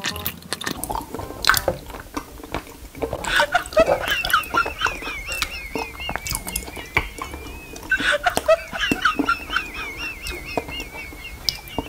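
Squeaky, wavering squeal of sauce and air being sucked through the nozzle of a small plastic squeeze bottle, heard twice with a few wet clicks.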